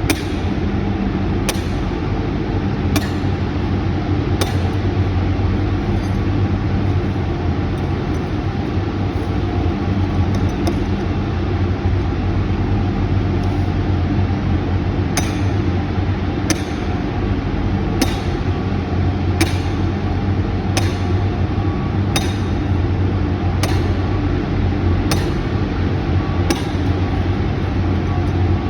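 Sledgehammer driving steel form pins into the ground, one sharp metallic blow about every second and a half, with a run of fainter blows in the middle. A steady engine drones underneath throughout.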